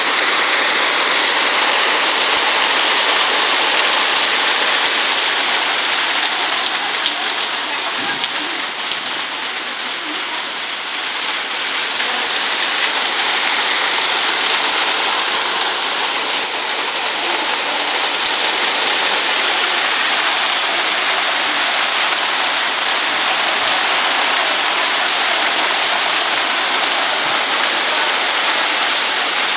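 Heavy rain pouring steadily onto paving and garden plants: a dense, even hiss of drops, easing slightly about ten seconds in and then picking up again.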